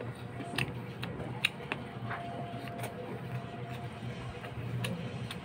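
Close-up chewing and wet mouth smacks of a person eating barbecued chicken and rice, with several short sharp clicks scattered through. A steady low hum runs underneath.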